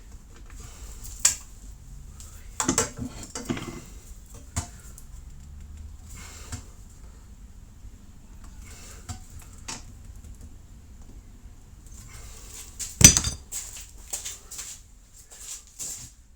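Irregular knocks and clinks of a student Jupiter trumpet's brass bell being worked with a nylon rod to push out dents and wrinkles. There are scattered light taps, with the loudest knock near the end.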